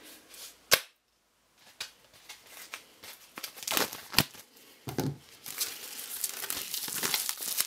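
Plastic shrink wrap crinkling and tearing as it is peeled off a CD's cardboard sleeve, in irregular crackly bursts that grow denser in the second half. A single sharp click comes about a second in, just before a brief silence.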